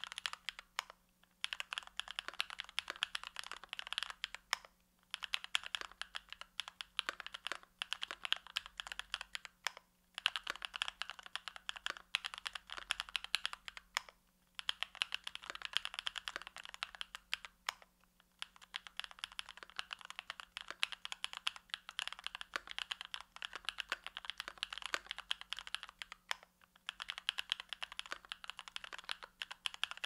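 Typing on a mechanical keyboard with lubed Tecsee Bubble 65 g linear switches, GMK keycaps and an aluminium plate: rapid runs of keystrokes a few seconds long, broken by short pauses.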